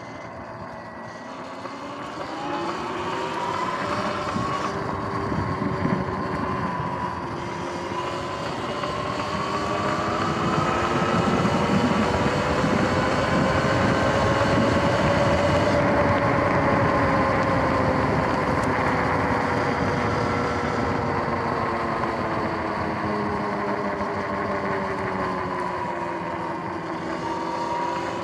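Electric dirt bike's motor whining while riding. The whine rises in pitch as the bike speeds up, peaks about halfway through, falls away as it slows, and climbs again near the end, over a steady rushing noise.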